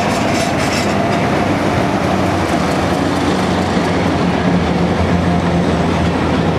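Diesel locomotive passing close by under power, its engine running steadily, as the passenger coaches behind it roll past on the rails.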